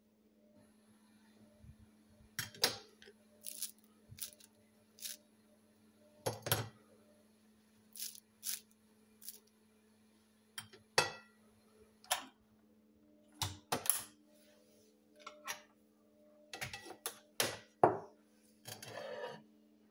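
Scattered light taps, clicks and clinks of toasted bread slices being handled and set down on a ceramic plate, and of an electric sandwich grill's lid being shut, over a faint steady hum.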